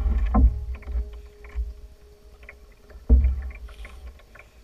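Wooden canoe being paddled on calm water: paddle strokes with a low thump and water swish at the start and again about three seconds in, quieter between strokes.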